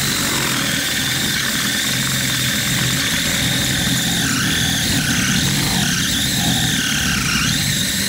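Cordless drill with a 1/2-inch bit boring out the mounting hole of an air shock absorber. The motor runs steadily under load while the bit squeals in the hole, the squeal wavering up and down in pitch from about halfway through.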